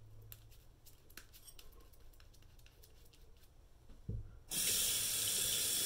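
Faint scratching ticks of a knife blade shaving stubble, then a soft knock, and about four and a half seconds in a bathroom sink tap is turned on and water runs steadily into the basin.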